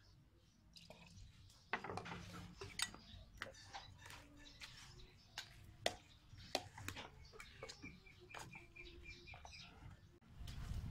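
Metal ladle clicking and scraping against a plastic strainer as chopped watermelon pulp is pressed through it: scattered light knocks starting about two seconds in. A bird chirps faintly several times in quick succession in the second half.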